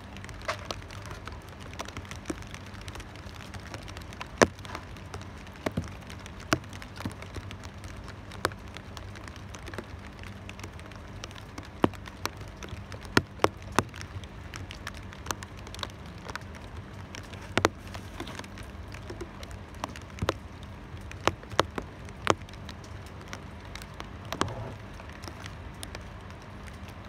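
Steady rain hiss with big drops landing close by on a hard surface as sharp, irregular taps, one or two every second or so.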